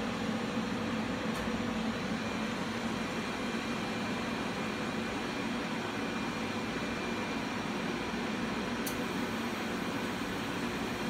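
Steady fan noise and electrical hum with a low drone from the running laser test equipment, its power supply and cooling working while the 40 W tube fires at 16 mA.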